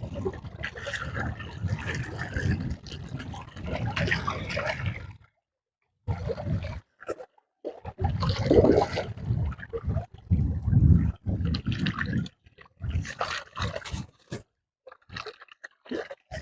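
Water splashing and sloshing in irregular bursts as a hooked catla thrashes at the surface. The sound cuts out completely for about a second, about five seconds in.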